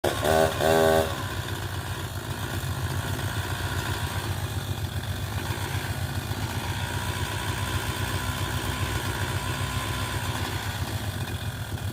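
An engine running steadily at idle, with a fast low pulsing. Two short, louder, higher-pitched bursts come in the first second.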